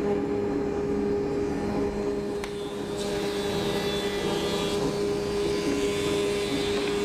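Felder CF741 planer-thicknesser running steadily as thin boards are fed through it: a constant machine hum, with the hissing cutting noise swelling over the middle few seconds. There is a single short click about two and a half seconds in.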